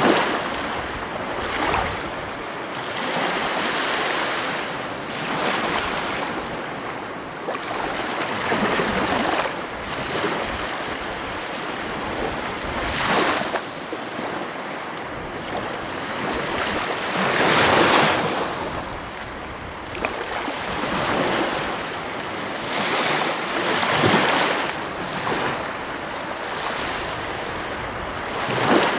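Heavy ocean waves breaking on the coast: a continuous surf wash that swells and falls, with louder crashes every few seconds, the biggest about a third and two thirds of the way in. Wind buffets the microphone.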